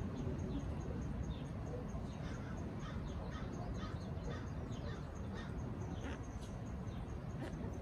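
Faint, short bird chirps scattered throughout, over a steady low outdoor rumble.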